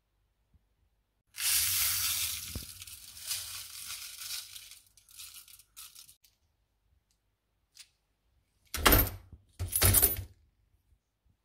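Baking soda poured into a foil-lined tray, a hissing rustle that fades out over about three seconds. Near the end, euro coins dropped onto the soda and foil in two short clattering bursts about a second apart.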